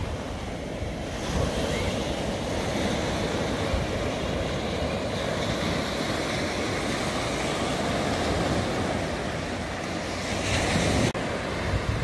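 Small waves breaking and washing up a sandy beach, a steady surf hiss with wind rumbling on the microphone. The wash swells about a second in and again near the end, where the sound drops out for an instant.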